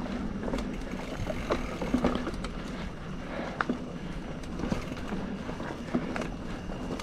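Specialized Fuse mountain bike riding along a dirt forest trail: a steady rumble of the tyres rolling, with frequent sharp clicks and knocks as the bike rattles over bumps.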